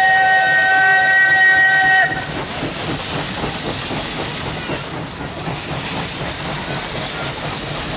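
Steam locomotive whistle sounding a steady chord of several notes, cutting off sharply about two seconds in. After it comes a steady rush of steam hiss and the noise of the working train.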